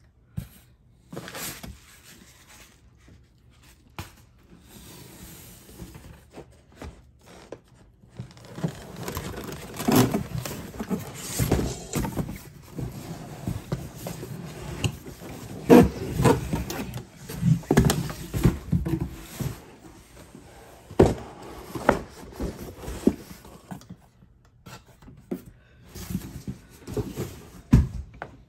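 A long cardboard product box scraping and rubbing against the inside of a larger cardboard shipping carton as it is worked out by hand. The rubbing is broken by irregular knocks and thumps and is busiest in the middle.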